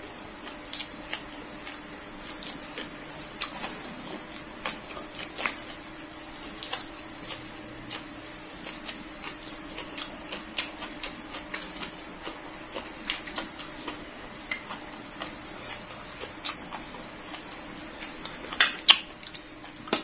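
Crickets trilling steadily in the background, with small clicks of chewing scattered through. Near the end come a couple of louder clicks as a spoon goes into the metal dish.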